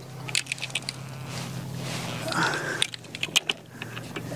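Light clicks and rattles of fishing gear being handled in a small boat, in two short clusters, with a brief squeak a little after halfway, over a steady low hum.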